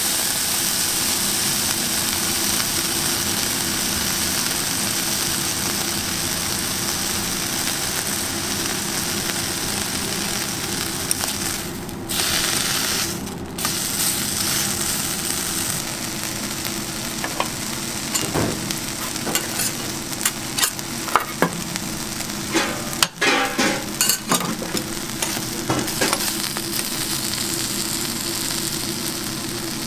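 Bacon strips sizzling steadily on a hot flat-top steel griddle. In the second half, metal tongs click and scrape against the griddle as the strips are turned.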